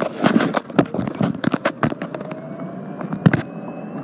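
A rapid, irregular series of sharp knocks and crackles, the loudest just past three seconds. Under them the whine of an electric golf cart's motor slowly rises in pitch as the cart picks up speed.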